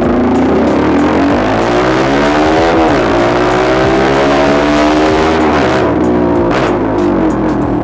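Honda CBR150R single-cylinder engine through an aftermarket SC Project muffler, revving: the pitch climbs for nearly three seconds, drops sharply, climbs again, then falls and settles near the end.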